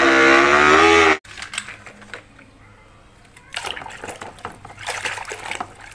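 A racing motorcycle engine runs loudly for about a second and cuts off suddenly. From about three and a half seconds in, water splashes and sloshes as a plastic toy motorcycle is scrubbed by hand in a tub of muddy water.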